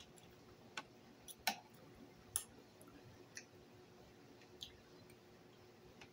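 Forks clicking against plates while eating, about six scattered sharp clicks with the two loudest in the first half, over a faint steady hum.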